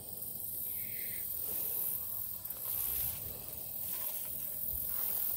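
Garden leaves and stalks rustling with footsteps as someone pushes slowly through a dense squash patch, over a steady high hiss.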